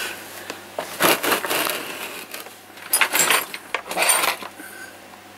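Metal spanners and small hand tools clinking and rattling as they are rummaged through in a plastic parts bin, in three short bursts of clatter.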